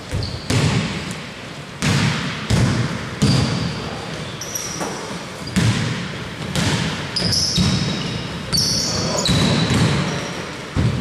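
Basketball being dribbled on an indoor hardwood court, the bounces echoing around the gym at an uneven pace, with short high-pitched squeaks of sneakers on the floor in the second half.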